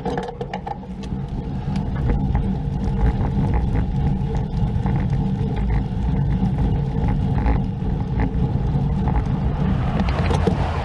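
Wind and road noise on the microphone of a camera riding on a moving road bike, a heavy steady low rumble, with passing car traffic mixed in.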